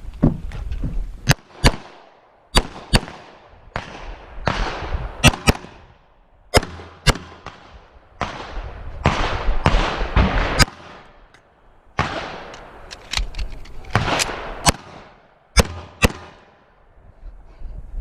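Pistol shots fired during a defensive pistol course of fire: about fifteen sharp reports spread irregularly, many in quick pairs, each with a short ring after it. A rushing noise fills the gaps between strings.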